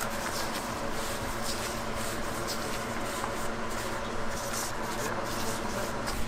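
Soft rubbing and rustling of gloved hands stretching pizza dough on an aluminium pizza peel, over a steady machine hum.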